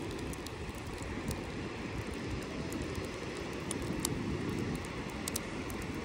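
Steady outdoor rumble of wind and sea surf, with a few faint scattered ticks.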